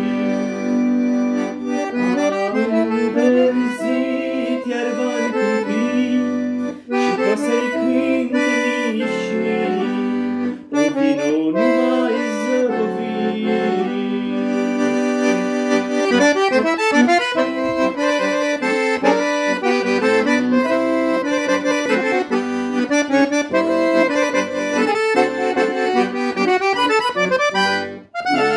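Piano accordion playing a melody in G major on the treble keys over sustained chords and bass notes, with brief breaks about seven and eleven seconds in and again just before the end.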